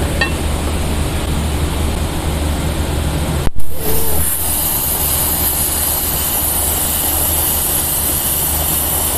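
Air plasma cutter cutting 6 mm steel plate: over a steady hum, a sharp pop about three and a half seconds in as the arc strikes, then a steady high hiss of the cutting arc and compressed air as it runs through the plate.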